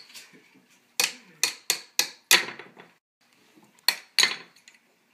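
Small plastic mallet tapping plastic ice blocks on a Don't Break the Ice game board: five sharp taps in quick succession, a pause of about a second and a half, then two more.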